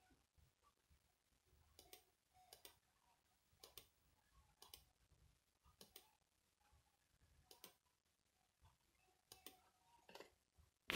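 Near silence with faint, sharp clicks about a second apart, irregularly spaced.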